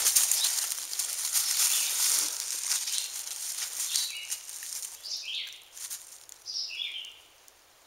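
Dry leaf litter rustling and crackling as a beagle puppy on a leash and the person walking it move over the forest floor. This fades after the first few seconds. A bird gives a few short, high calls that step down in pitch, around the middle and again near the end.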